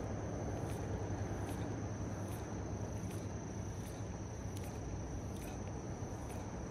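Steady rushing of flowing river water under a continuous high-pitched insect drone, with faint ticks a little more than once a second.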